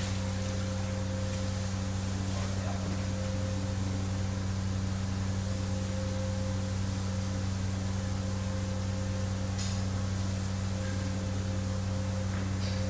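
Screed pump running steadily while liquid floor screed is pumped through the delivery hose: a constant low hum with a few steady tones that do not change.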